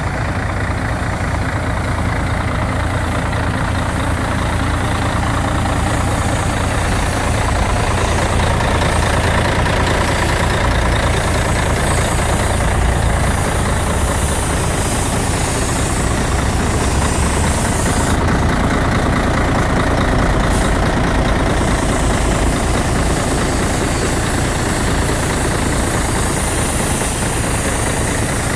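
Volvo FH12 420 truck's 12-litre straight-six diesel idling steadily.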